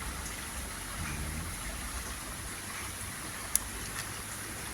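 River water flowing steadily as an even hiss, with a brief faint low hum about a second in and a single sharp click about three and a half seconds in.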